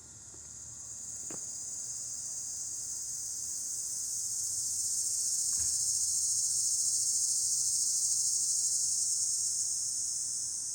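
Chorus of summer cicadas buzzing, a steady high-pitched drone that swells louder over the first several seconds and eases slightly near the end, one group cresting.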